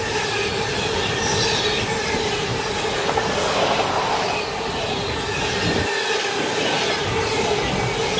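Container freight train's loaded flat wagons rolling past at speed: a steady rumble of wheels on rails with a constant whine over it.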